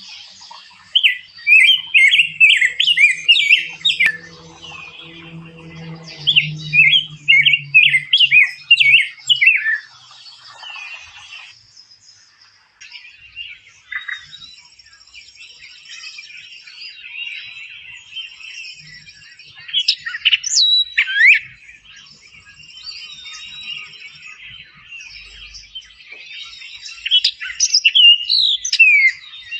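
Songbirds singing. One bird gives two loud phrases of rapid warbled notes, then a chorus of fainter chirps carries on, broken by loud, sharp down-slurred calls twice near the end.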